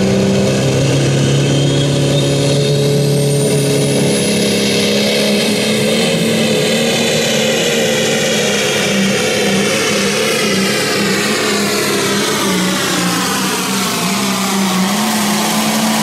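Turbocharged diesel engine of a John Deere pro stock pulling tractor running wide open under heavy load while dragging the sled. A high turbo whine falls steadily in pitch over the last several seconds as the tractor comes past.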